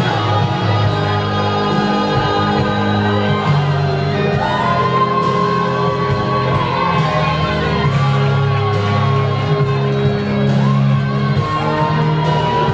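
Music with a singer holding long sustained notes over steady chords, three long held notes in the second half.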